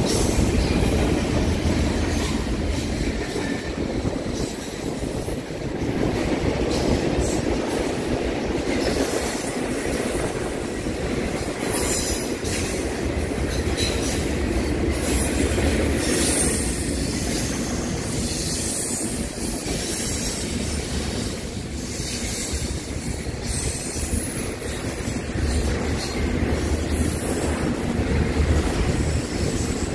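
Double-stack container well cars of a freight train rolling past: a steady rumble of steel wheels on rail with some clickety-clack. Brief high-pitched wheel squeal comes twice, about a quarter of the way in and again near the end.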